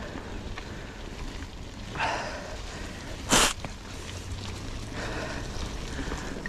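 Mountain bike riding on a dirt trail: a steady low rumble of tyres and wind on the microphone. There is a short breathy sound about two seconds in, and a brief, sharp rush of noise just over three seconds in, the loudest moment.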